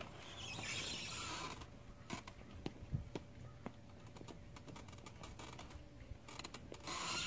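Hinged cockpit frame of a homemade robot mech costume being swung open, giving scattered clicks and creaks. Two hisses of about a second and a half each come near the start and near the end.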